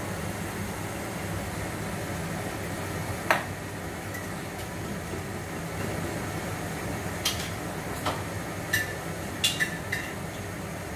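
A pan of squid adobo simmering over a steady low hum. There is one sharp clink of kitchenware about three seconds in, then a run of light clinks over the last four seconds.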